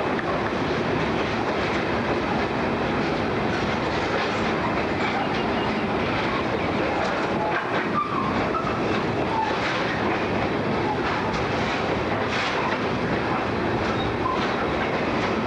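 Freight train of loaded coal hopper wagons rolling steadily past, a continuous rumble of wagons with the wheels clicking over rail joints.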